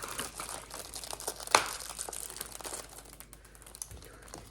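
Plastic frosting piping bag crinkling as it is handled and squeezed, with a patter of small crackles and one sharper click about a second and a half in.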